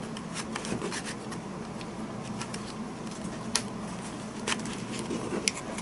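Small plastic clicks and light rustling as a rechargeable LED headlamp's plastic battery box is handled and attached to its elastic headband, with a couple of sharper clicks near the middle, over a faint steady low hum.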